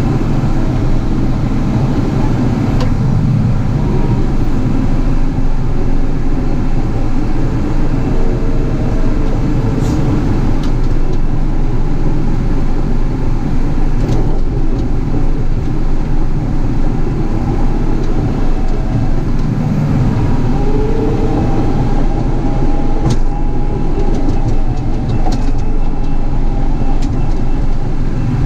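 Caterpillar 973C track loader's diesel engine running steadily as the machine works, with a few sharp metallic clanks from the tracks and bucket.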